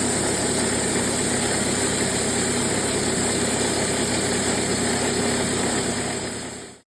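TimberKing portable band sawmill running steadily, its engine and band blade cutting through a log, fading out near the end.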